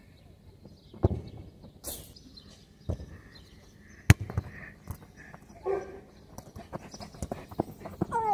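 A football being kicked and touched on artificial turf: a series of sharp thuds about a second apart, the loudest about four seconds in.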